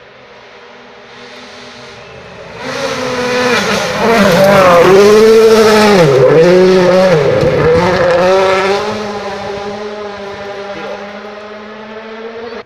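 A 2017 World Rally Car's 1.6-litre turbocharged four-cylinder engine at full throttle, approaching, passing close by and fading away. Its pitch drops sharply and climbs again a few times mid-pass, with a hiss of tyres on gravel while it is loudest.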